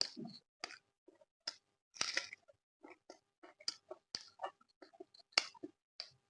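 A person chewing food with mouth open to the microphone: a quick, irregular run of short smacks and mouth noises.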